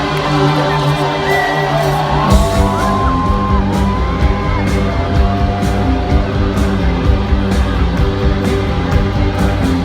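Live rock band playing on stage, held guitar tones at first, then bass and drums come in with a steady beat a little over two seconds in.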